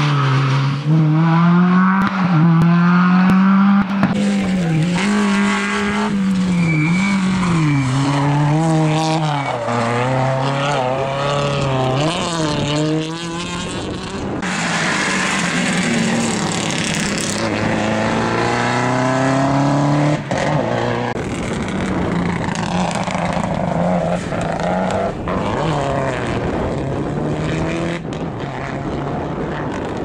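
Rally car engines revving hard as several cars pass in turn, the pitch climbing and dropping repeatedly with each gear change and lift off the throttle.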